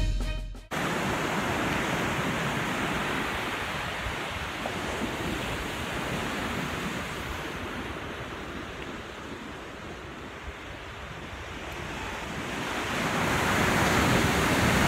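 Ocean surf washing onto the shore, with wind rumbling on the microphone. The surf grows louder near the end as a larger wave breaks.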